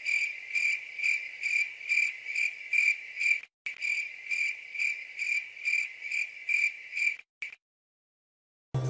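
Cricket chirring: a steady high trill pulsing about twice a second, which breaks off abruptly a little past halfway, resumes at once and stops sharply near the end.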